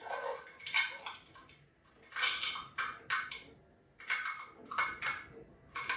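Animatronic flesh-eating zombie prop running its soundtrack through its built-in speaker: a string of short clattering, crunching bursts, about nine in six seconds, with quiet gaps between.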